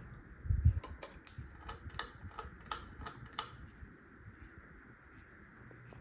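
A low thump, then a quick irregular run of sharp clicks, about three a second for some three seconds, over the faint steady air hiss of a wobbly Harbor Breeze Tahoe ceiling fan running.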